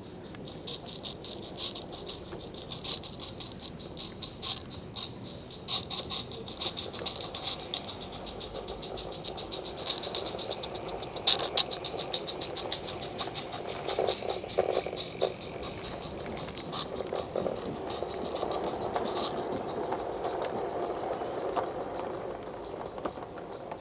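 16mm-scale garden-railway live steam locomotive chuffing rapidly as it draws near and passes close by, followed by its goods wagons rolling and rattling over the track with wheel squeal as they go past.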